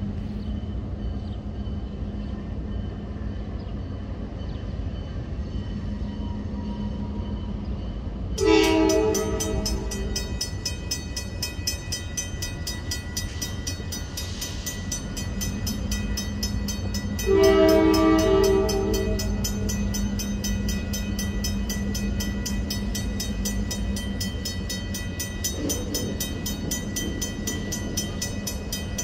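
Griswold mechanical crossing bell starts ringing in a fast, steady clatter about a third of the way in as the crossing activates. Two blasts of a diesel locomotive's air horn from the approaching CN train come with it, one as the bell starts and a longer one about nine seconds later.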